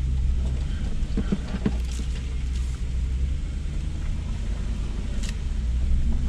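Lexus GX470's 4.7-litre V8 running at low speed as the SUV crawls over a rocky dirt trail, heard from inside the cabin as a steady low rumble. A few faint knocks come through, about a second in and again near the end.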